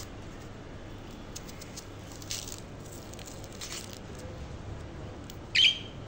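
Caged budgerigar giving one short, loud chirp that sweeps upward, near the end. Two softer rustling sounds come earlier.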